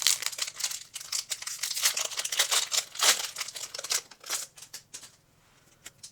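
Foil Pokémon booster pack wrapper crinkling and tearing as it is opened, dense and continuous for about four and a half seconds, then a few light clicks and rustles as it is handled.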